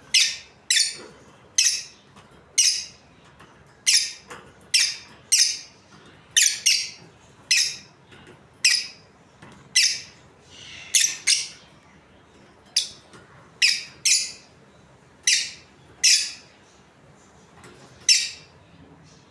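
Pet budgerigars giving a long series of short, sharp, high-pitched chirps, about one or two a second, with brief pauses in between.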